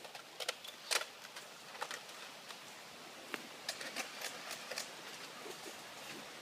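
A string of irregular sharp clicks and knocks over a faint hiss, the loudest about a second in.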